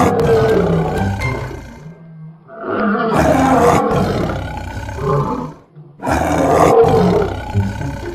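Three long, rough big-cat roars of two to three seconds each, with short breaks between them, played as the cheetah's sound.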